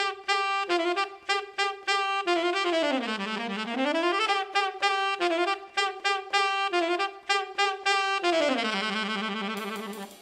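Unaccompanied tenor saxophone playing a jazz line of short, clipped repeated notes. A few seconds in it slides slowly down and back up, and near the end a long note glides down to a low held tone.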